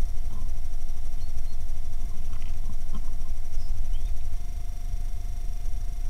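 Low rumble on a trail camera's microphone, under a steady high electronic whine from the camera itself, with a few faint taps; the rumble eases about four seconds in.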